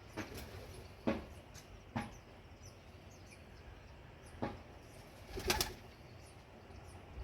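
House sparrows' wings flapping in about five short flurries, the loudest about a second in and again near the end, with faint high chirping in the background.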